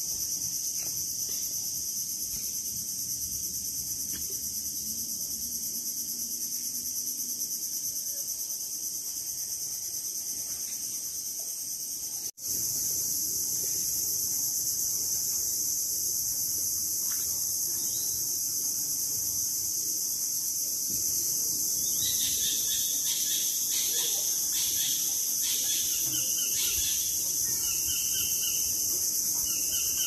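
Steady, high-pitched chorus of insects, which breaks off for an instant about twelve seconds in. From about two-thirds of the way through, birds add short repeated chirps over it.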